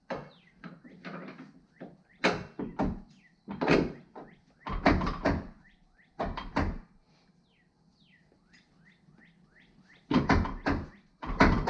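Metal suspension parts and tools knocking and clunking irregularly as a car's front suspension is worked back together, with a quiet spell in the middle.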